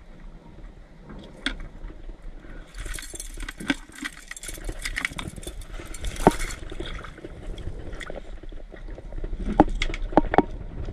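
Small metal fishing tackle (hooks, snaps and swivels on a crappie rig) clicking and clinking as it is handled, with water splashing for a few seconds in the middle.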